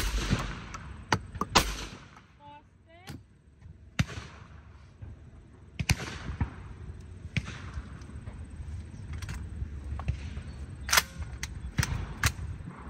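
Shotgun shots at irregular intervals, a few loud and most of them fainter and farther off.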